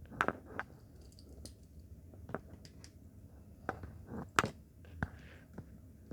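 Light clicks and taps from hands handling a wristwatch and its packaging: irregular small knocks, a quick pair near the start and the sharpest click about four and a half seconds in.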